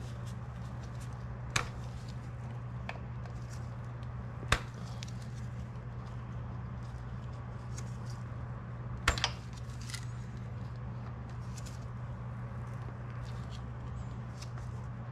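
Light clicks and metallic taps of a hand tool working a fitting under a motorcycle engine, with sharp clicks about one and a half and four and a half seconds in and a quick double click about nine seconds in, over a steady low hum.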